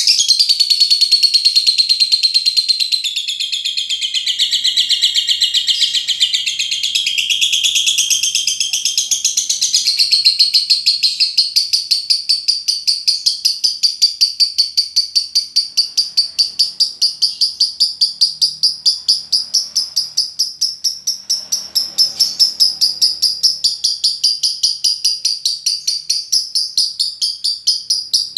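Lovebird singing a long, unbroken ngekek: high-pitched, chattering song. For about the first ten seconds it is a dense jumble of notes, then it settles into a fast, even run of repeated chirps.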